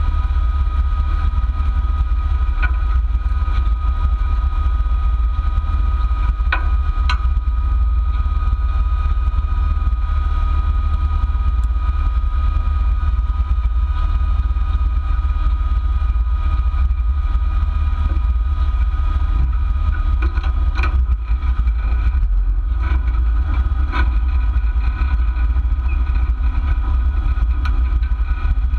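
Jeep engine idling, heard through the hood, a steady deep rumble with a few brief knocks.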